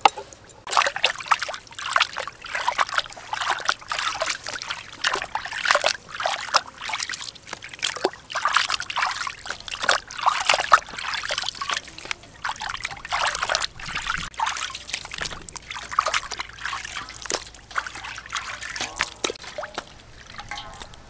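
Water sloshing and splashing in a steel basin as hands rub and turn plucked quail to wash them, in quick irregular splashes.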